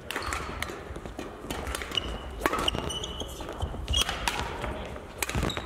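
Badminton play on a sports-hall court: a string of sharp racket hits on the shuttlecock and footfalls, with brief high squeaks of shoes on the court floor, echoing in the large hall.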